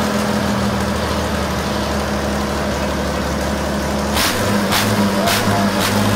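A vehicle engine running steadily at idle, with three sharp cracks about half a second apart some four seconds in.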